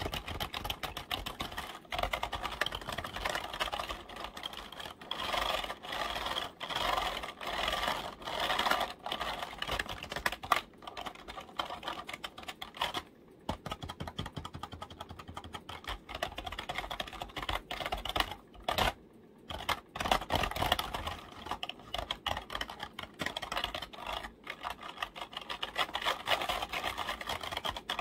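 Keys of a computer keyboard clicking in rapid runs of typing and tapping, stopping briefly about halfway through and again about two-thirds of the way through.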